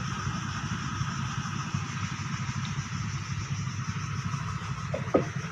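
An engine running steadily, a low pulsing rumble. A brief higher sound cuts in near the end.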